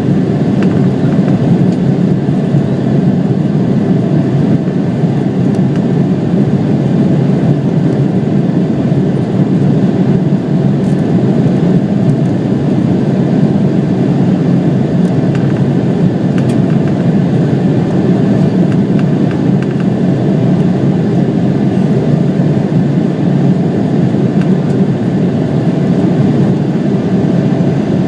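Embraer 170 airliner's turbofan engines giving a loud, steady, low rush that holds unchanged throughout.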